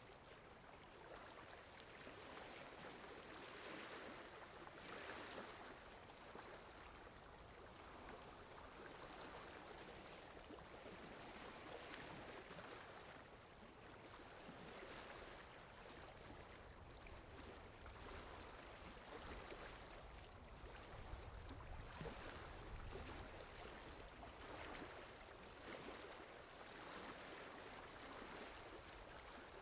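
Soft, steady rain: a faint even hiss that swells and eases every few seconds, with an occasional single drop ticking.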